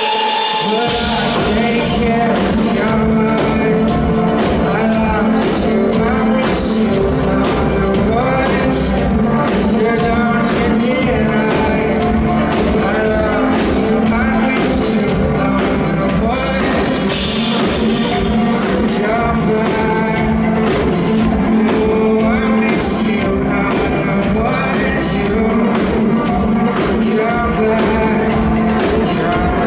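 Live band performance: a man singing into a microphone over keyboards, electric guitar and drum kit. The deep bass end comes in about a second in, then the full band plays on steadily.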